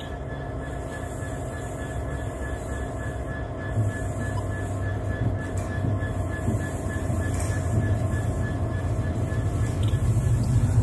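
Slow-moving freight train of loaded log wagons hauled by a Class 70 diesel locomotive, rumbling past and growing steadily louder, with a faint high steady squeal from the wheels.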